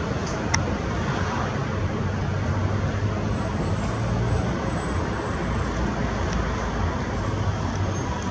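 Steady road-traffic noise from a busy city avenue: a continuous low rumble of passing cars and other vehicles.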